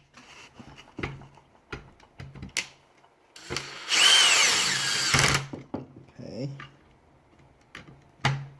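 Power drill driving a screw in one burst of about a second and a half, its whine falling in pitch, with light clicks and knocks of parts being handled around it.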